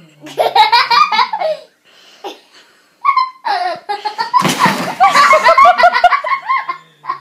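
People laughing hard in fast repeated high-pitched bursts: one fit in the first second and a half, then after a short pause a longer one, with a brief noisy burst about halfway through.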